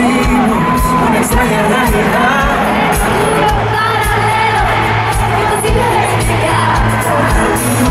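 Live pop music played through a stadium sound system: voices singing over a band with a steady beat, with crowd noise underneath.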